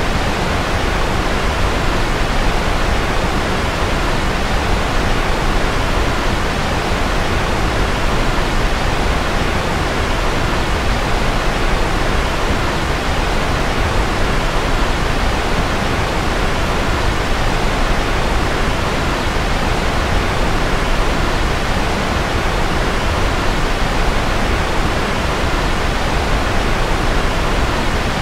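Steady white noise for sleep: an even, unchanging hiss, fuller in the middle and lower pitches than in the very highest.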